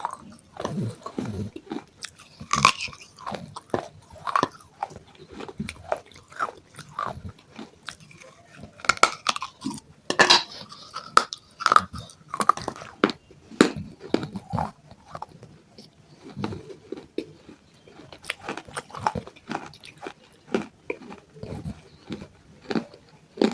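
Close-miked biting and chewing of broken baked clay pot pieces: a steady run of irregular, sharp crunches.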